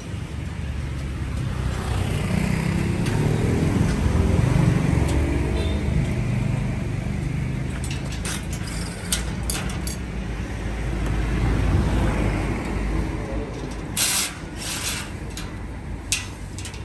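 A road vehicle's engine rumbles past in the street, swelling and fading twice with its pitch shifting. Sharp metallic knocks and clanks come from the steel shipping crate frames being taken apart, mostly around the middle and near the end.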